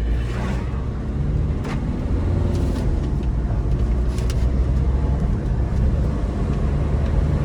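Maruti Swift Dzire diesel engine and road noise while the car is driven: a steady low drone that builds slightly about two seconds in as it picks up, with a few short clicks. The engine runs smoothly and quietly, its timing belt freshly replaced.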